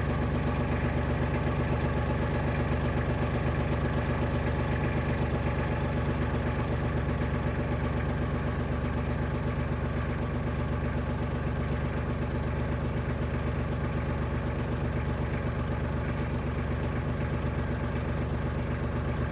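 Tractor engine running steadily, with no change in speed.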